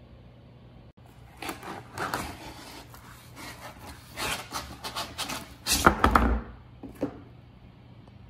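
Cardboard box being handled and a vacuum-sealed plastic pouch of frozen chicken drumsticks sliding out of it, with irregular scraping and rustling. A louder scrape with a low bump comes near the end, as the pack lands on the counter.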